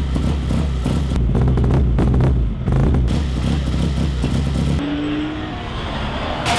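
Racing car engine running and revving with a deep rumble and some clatter. About five seconds in, the sound drops to a quieter, more distant engine note.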